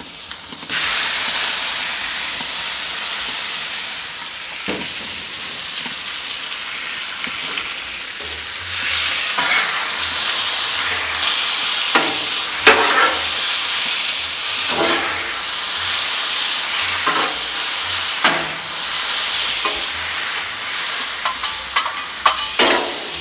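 Thin slices of beef hitting a hot Blackstone griddle and sizzling, loud from about a second in. Repeated scrapes and clacks of a spatula on the griddle top come in as the meat is stirred and turned.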